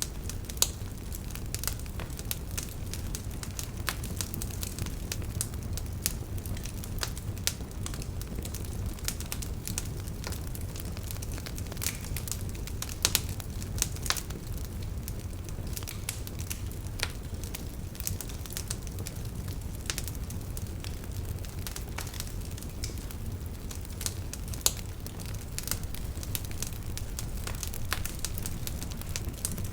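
Fire burning in a fireplace: irregular sharp crackles and pops over a steady low rumble of flames, with a few louder pops scattered through.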